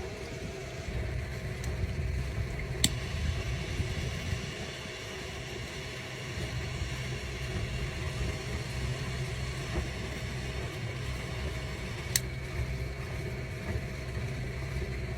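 Wind buffeting the microphone as a steady, fluttering low rumble, with two sharp clicks about three seconds in and about twelve seconds in.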